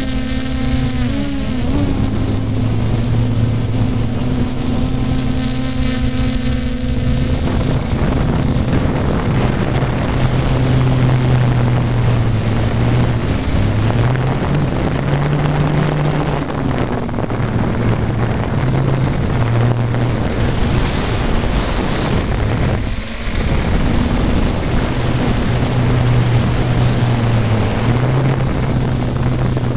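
Small camera drone's electric motors and propellers whirring in flight, the pitch of the hum shifting up and down as it manoeuvres, with a high whine above it.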